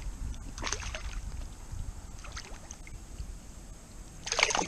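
Hooked spotted bass splashing at the surface as it is reeled in, with a louder splash about four seconds in as it is grabbed by hand and lifted out of the water, over a low rumble.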